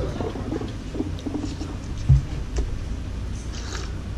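Small clicks and handling noises of a soda bottle and a glass on a table, with one dull thump about two seconds in, over a low steady hum.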